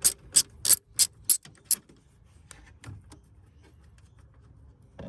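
Socket ratchet clicking as a 10 mm nut is backed off, about three clicks a second, stopping about two seconds in; faint light ticks of handling follow.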